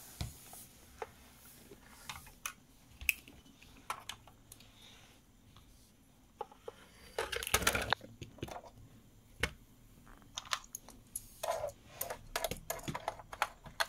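Plastic Playmobil toy pieces being handled and clicked into place, likely the luggage being loaded onto the toy airplane: scattered sharp clicks and taps, with a denser clatter about halfway through and again near the end.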